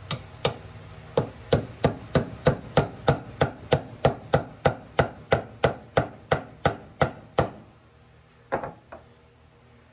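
Small hammer tapping a universal joint's needle-bearing cup square into an axle yoke: a run of light, even metal taps, about three a second, that stops after some seven seconds. One duller knock follows about a second later.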